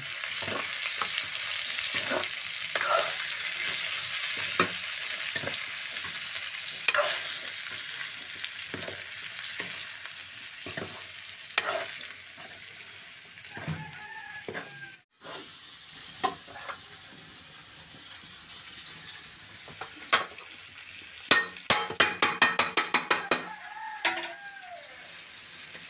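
Vegetables sizzling in a black wok over a wood fire as a metal ladle stirs them, scraping and knocking against the pan. The sizzle is strongest in the first half. Near the end comes a quick run of about a dozen sharp metal taps.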